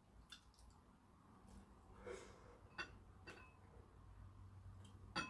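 Near silence with faint eating sounds: a few soft clicks and mouth sounds as a spoonful of rice is eaten.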